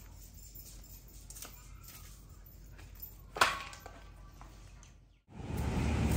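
A black metal pool-fence gate clacking shut with a short metallic ring a little past halfway, over a quiet outdoor background with a few faint clicks. Near the end a louder, steady background with a low hum comes in.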